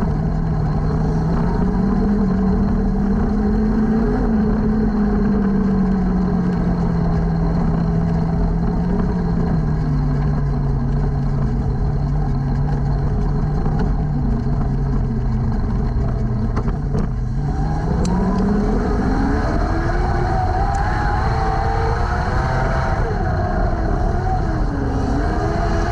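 Junior sprint car's engine heard from the cockpit, running at low, slightly wavering revs at slow pace speed, then revving up sharply about two-thirds of the way in as the car accelerates to racing speed, its pitch then rising and falling with the throttle.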